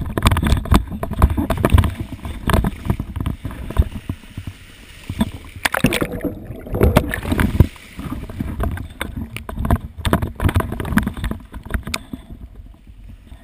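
Sea water splashing and rushing against a GoPro camera held low over a boat's side, in loud irregular surges. About six seconds in the camera goes under the surface and the sound turns muffled for a second or two.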